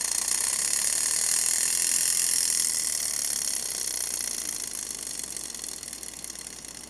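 The spring-wound engine gear of a Wolborg 4 Beyblade top, released after winding, whirring with a fast, fine ticking while held in the hand. It is strongest about one to three seconds in, then fades steadily as the gear runs down.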